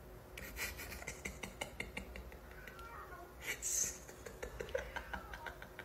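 Faint small sounds from two kittens: scattered soft clicks and a brief, high, quiet squeak a little past halfway.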